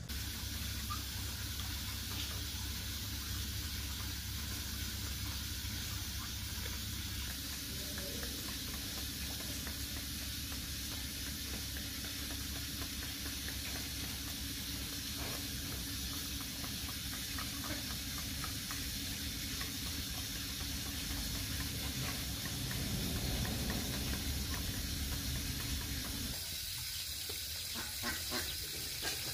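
Steady background hiss with a low hum under it; the hum stops near the end, leaving the hiss and a few faint ticks.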